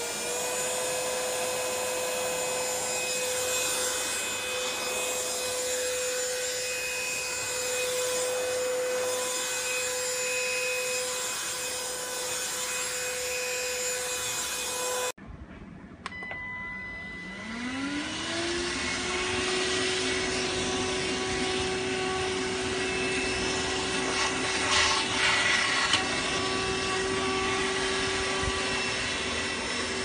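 Kessler K-9998 cordless handheld vacuum cleaner running with a steady motor whine. Halfway through, after a cut, the motor spins up again, its whine rising for about two seconds before settling, with a brief louder rush of air a few seconds later.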